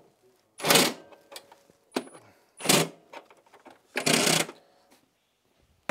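Milwaukee Fuel cordless impact driver firing in three short bursts, about two seconds apart, as it runs down and snugs an A-arm mounting bolt on a snowmobile's front suspension.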